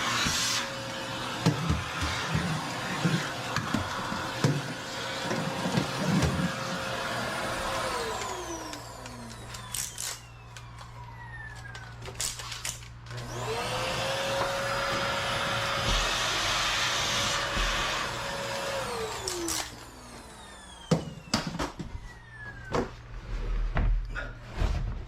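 An electric power tool's motor running with a steady whine, spinning down about eight seconds in, starting up again a few seconds later and spinning down again near twenty seconds, with knocks and clatter around and between the runs.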